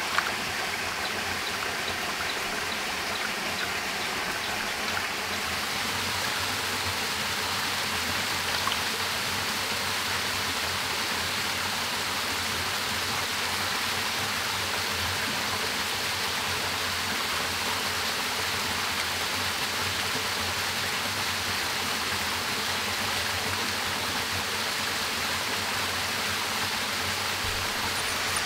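Steady rush of a shallow stream and a small waterfall running over rocks, with a single sharp click right at the start.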